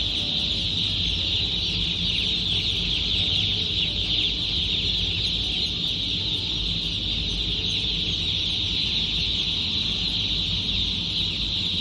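A large crowd of newly placed broiler chicks peeping without a break, a dense high-pitched chorus, over a low steady hum.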